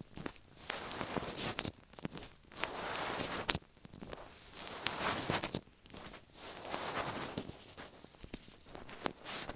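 Latex-gloved fingers rubbing, tapping and sticking on an earphone microphone close up: irregular scratchy rustling broken by sharp taps, the loudest about three and a half seconds in.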